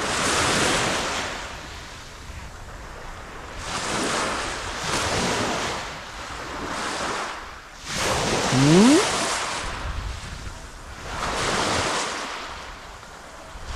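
Small waves breaking and washing up a sand and pebble shore, the rush swelling and fading every couple of seconds. A brief rising tone sounds about two-thirds of the way through.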